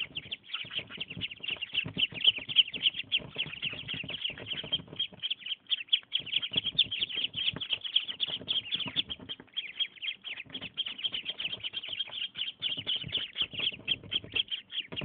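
A crowd of five-day-old ducklings peeping constantly: many short, high-pitched peeps overlapping, several a second.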